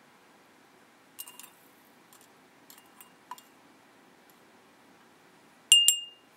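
Light clicks of metal against a glass jar as the silver piece is moved in the neutralizing baking-soda water. Near the end comes one loud, sharp clink with a short glassy ring.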